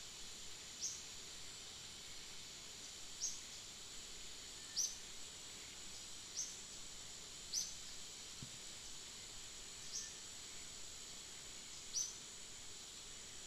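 Outdoor ambience: a steady, high insect drone, with a short high chirp repeating about seven times, every one to two seconds.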